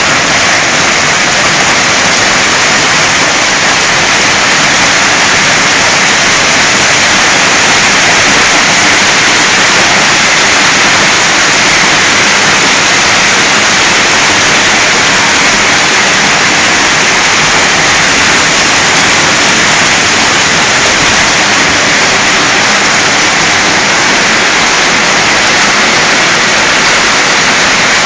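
A hailstorm: hailstones falling heavily, a dense, steady hiss of countless stones striking surfaces.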